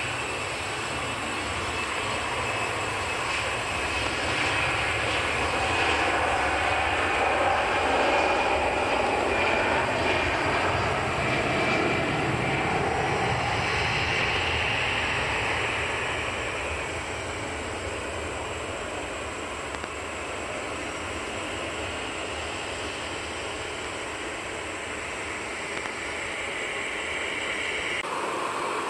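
Airbus A320-200 jet engines at takeoff thrust: a steady roar with a high fan whine, growing louder to a peak about a third of the way in, then fading as the airliner climbs away. The sound cuts off near the end.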